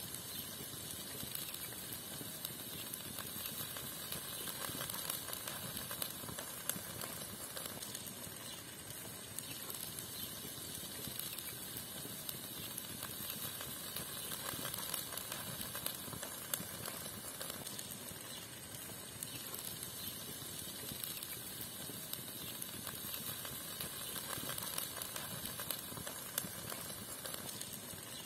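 Ground lamb, onion and peppers sizzling steadily in a frying pan over a wood fire, with many small crackles and pops.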